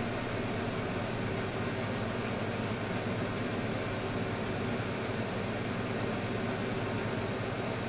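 Steady room noise: an even hiss with a low hum underneath, unchanging and without any distinct sounds.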